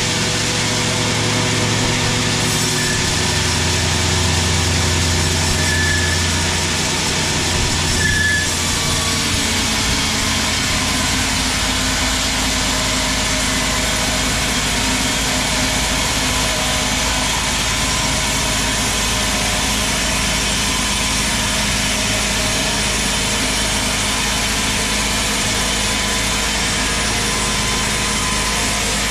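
Sawmill log band saw running steadily as it rips a long teak log: a constant machine hum with the even hiss of the blade cutting through the wood.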